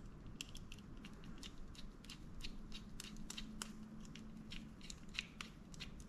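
Faint, irregular small clicks and ticks of a precision screwdriver turning the small cover screws of a Shimano Curado MGL 151 baitcasting reel.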